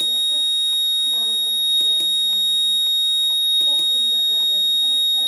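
A steady, piercing high-pitched electronic tone from an EVER Powerline inverter/UPS, with pairs of short clicks about every second and a half as its front-panel arrow button is pressed and released.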